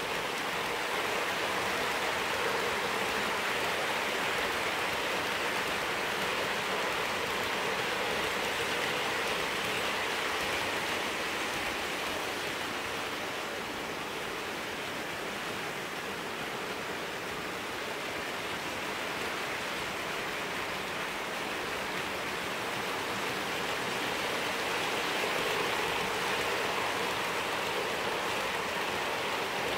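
Hornby OO gauge Class 43 HST model train running on the track, its wheels and power car motor making a steady rushing hiss. It eases off somewhat midway and grows again near the end as the train comes back past.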